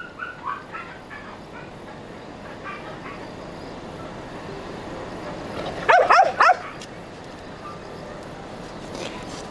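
Dog yapping: a quick burst of three or four sharp barks about six seconds in, after a few faint high whines near the start.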